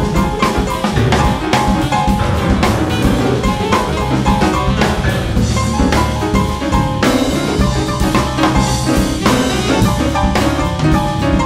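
Instrumental jazz from a quartet of alto saxophone, piano, bass and drums. The drum kit is busy and to the fore, with snare, bass drum and rimshot hits over steady bass notes and short pitched notes in the middle range.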